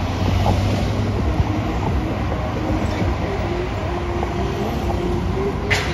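Road traffic at a busy intersection: engines idling and vehicles passing in a steady low rumble, with a short sharp click near the end.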